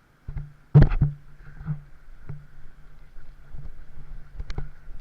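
Water sloshing and knocking against a handheld action camera in the surf, with one loud splash or knock about a second in, then scattered smaller knocks over a steady hum.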